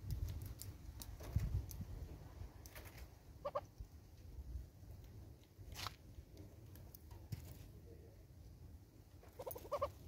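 Southern red-billed hornbill pecking in a feeder container, making scattered sharp taps, with short runs of hornbill clucks about three and a half seconds in and again near the end.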